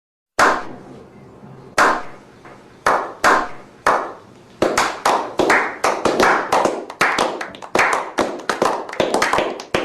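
Slow hand clapping: single sharp claps about a second apart, picking up speed about halfway into quicker, steady clapping.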